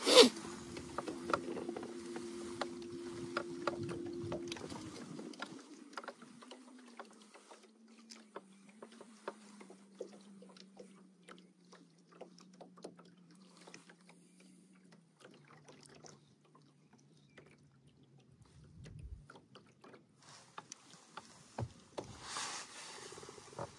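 A sharp knock at the start, then an electric trolling motor's low whine that steps slowly down in pitch as the motor slows, with scattered small ticks and water lapping at the boat's hull.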